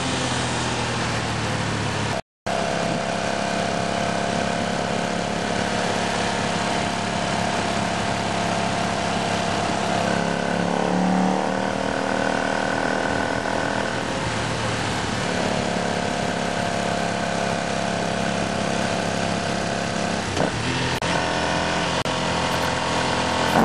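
Ducati S2R 1000's air-cooled L-twin through Termignoni carbon-fibre slip-on exhausts, running steadily at road speed under wind rush, heard from a camera on the moving bike. The engine note rises and falls once about halfway through, and the sound cuts out briefly a couple of seconds in.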